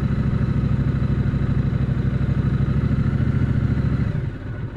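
Triumph Speedmaster's 1200 cc parallel-twin engine running steadily at low speed, going quieter about four seconds in.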